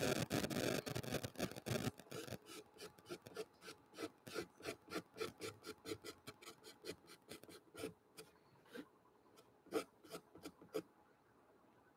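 Pastel pencil scratching on gesso-coated watercolour paper. A dense burst of fast scribbling comes first, then short separate strokes at about three or four a second, growing sparser near the end.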